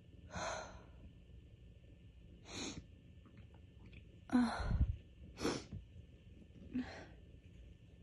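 A woman's allergy sneezing fit: five short, sharp bursts of gasping breath and sneezing, the loudest about four and a half seconds in.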